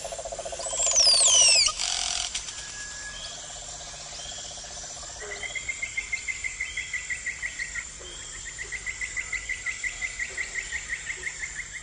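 Insect and bird sounds. A steady high insect whine runs throughout, and a low pulsing trill stops about two seconds in. Several falling whistled calls come about a second in and are the loudest part. In the second half there are two long pulsed trills of about six pulses a second.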